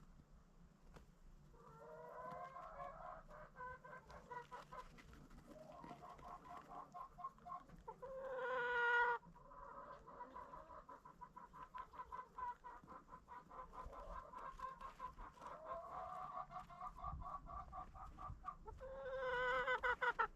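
Chickens clucking continuously in quick pulsing calls, with two louder, drawn-out calls about a second long, one about eight seconds in and one near the end.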